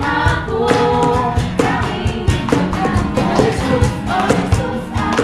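Tagalog Christian worship music with a steady drum beat and a sustained melody.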